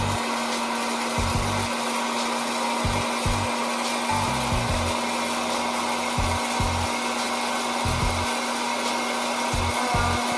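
Electric hot-air popcorn maker running just after being switched on: its fan blows a steady rushing noise over a steady low hum, with a few short low rumbles.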